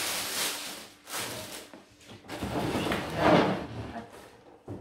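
Clear plastic packaging rustling as it is handled, then a white overlocker being shifted on a wooden table. The handling noise comes in three stretches, loudest about three seconds in.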